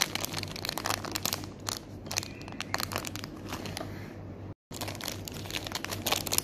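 Plastic snack wrapper crinkling in the hands as it is worked open, a dense run of sharp crackles, broken by a moment of silence about four and a half seconds in.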